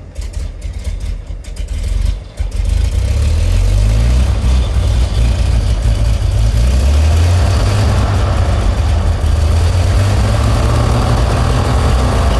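1929 Buick's six-cylinder engine idling, freshly filled with 15W40 oil and holding oil pressure. The running gets markedly louder about two and a half seconds in, then stays steady.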